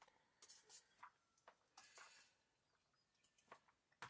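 Faint, scattered scratches and clicks of chopsticks stirring steaming noodles in a plastic bowl.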